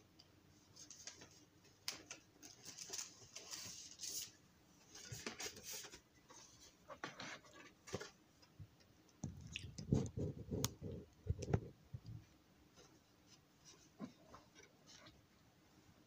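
Faint rustling of paper and card being handled, with scattered light clicks and taps and a few soft thumps about ten seconds in.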